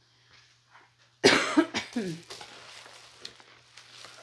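A woman coughs hard a little over a second in, the cough dropping in pitch as it trails off. It is followed by a softer rustle and crinkle of a plastic bubble mailer being handled.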